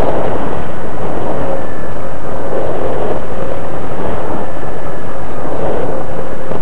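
Slow Flyer 1400 radio-controlled model plane in flight, heard through its onboard camera: wind rushing over the microphone mixed with the whine of its motor and propeller. Loud throughout, with a faint whine that wavers in pitch.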